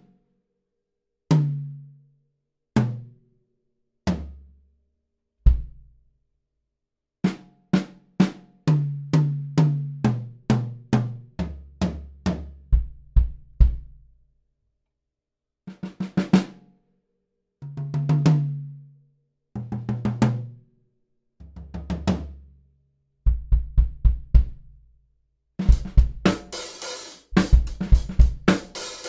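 Close-miked Fibes drum kit played solo. It opens with single strokes moving down the drums from high to low, then runs of tom fills around the kit. Near the end a beat with bass drum, snare and cymbals comes in.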